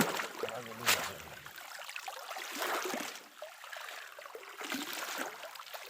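Water trickling and splashing in a river, an uneven watery hiss with a brief sharp noise about a second in.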